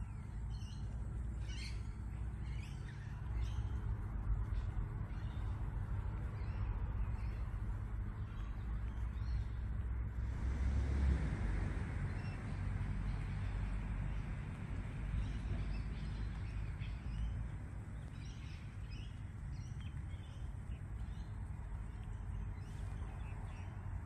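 Small birds chirping in short, scattered calls over a steady low rumble of distant traffic, with a broader rushing swell about ten seconds in that fades over a few seconds.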